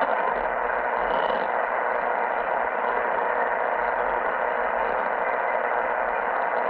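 Steady radio static hiss from a Bendix King KR-86 ADF receiver tuned to 360 kHz, played through a speaker.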